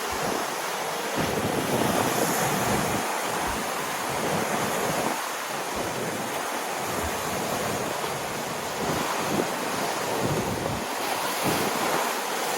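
Lake waves washing in a steady, surging rush of water, with wind buffeting the microphone in irregular low rumbles.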